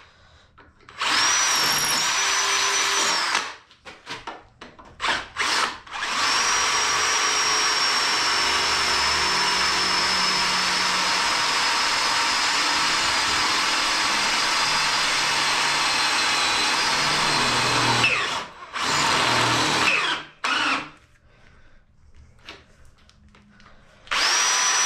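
Cordless drill boring through steel plate where it meets a weld bead. The drill runs in several short bursts, then once for about twelve seconds with its motor whine falling slowly in pitch, then in two more short bursts. After a pause of a few seconds it starts again near the end.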